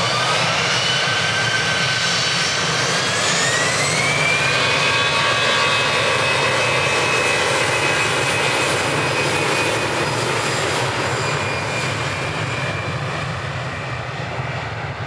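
Jet airliner's turbofan engines spooling up to takeoff power: a loud roar whose whine rises in pitch over the first few seconds, then holds steady, then fades gradually near the end as the aircraft moves away down the runway.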